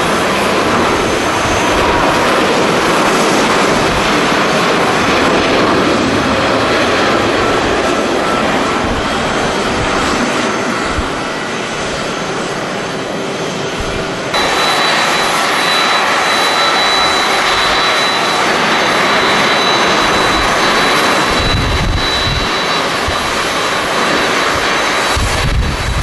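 Airbus A350-900 airliner's Rolls-Royce Trent XWB jet engines at takeoff thrust: a loud, steady jet roar through the takeoff roll and climb-out, with an abrupt change in the sound about halfway through. Short gusts of wind buffet the microphone near the end.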